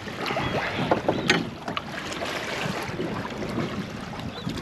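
Wind and water noise around a small boat at sea, with a few sharp knocks and clatters about a second in.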